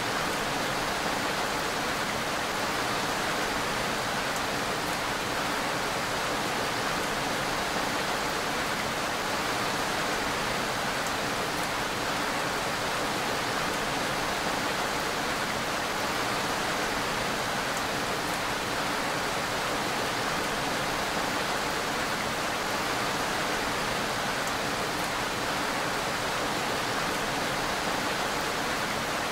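Steady, dense rainfall: an even hiss with no change in level.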